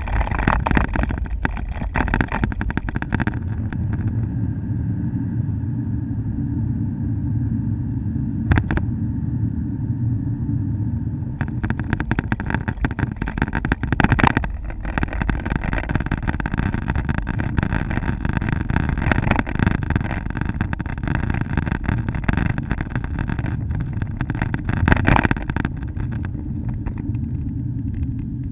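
Car driving along a road: a steady low rumble of engine and tyres, with scattered crackles of wind buffeting the microphone. A little quieter near the end.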